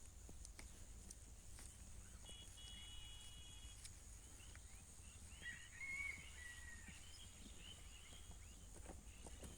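Faint outdoor ambience: a steady high insect drone, with short bird whistles and a brief run of chirps near the middle.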